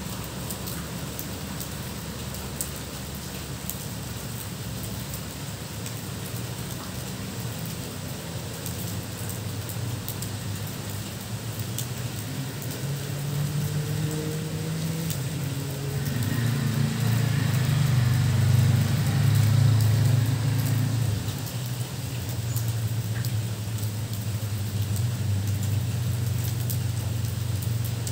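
Steady rain falling, with a vehicle passing on the wet road: a low engine rumble and tyre hiss that swell after about halfway, are loudest a little past two-thirds of the way through, and fade near the end.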